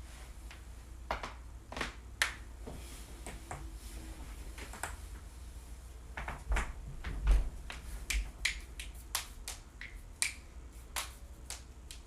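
Joints cracking: a string of sharp pops, about a dozen at uneven intervals, the loudest a little past the middle.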